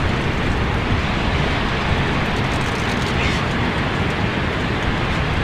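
Wind buffeting the microphone over the wash of breaking surf: a loud, steady rush of noise with no let-up.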